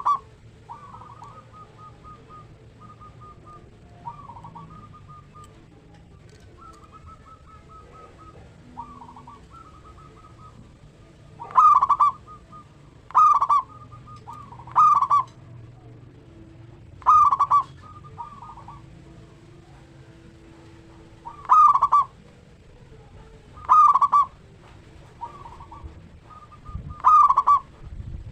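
Zebra doves (perkutut) cooing. Fainter trilled coos come and go throughout. From about twelve seconds in, one bird gives a loud call seven times, a couple of seconds apart, and quieter coos answer between them.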